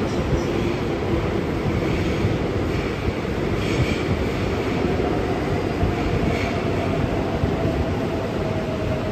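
Seoul Subway Line 3 electric train running into the station behind the platform screen doors. Its wheels make a steady rumble on the rails, broken by a couple of brief high squeals. From about five seconds in, a thin whine sinks slowly in pitch as the train slows to stop.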